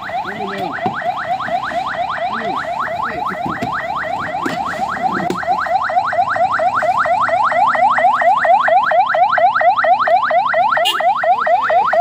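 Ambulance siren in yelp mode: rapid rising wails, about five a second, growing louder as the ambulance approaches.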